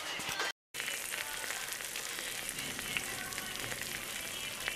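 Meat baked French-style under zucchini, tomato and cheese, sizzling in its glass baking dish straight out of the oven: a steady hiss with faint crackles, after a brief dropout about half a second in.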